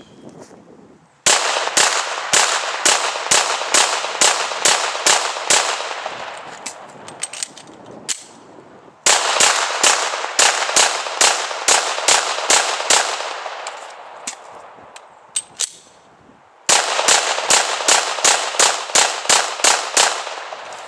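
Glock 17L 9mm pistol fired in three strings of about ten shots each, the strings separated by brief pauses for magazine changes. Each shot is sharp and leaves a trailing echo.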